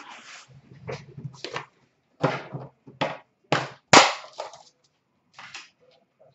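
A man laughing in short breathy bursts, with card-handling noise and a sharp click about four seconds in as a metal card tin is opened.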